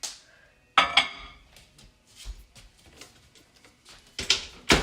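A microwavable cup being put into a microwave oven and the door shut: sharp knocks and clatter about a second in, small clicks, then a louder pair of knocks near the end.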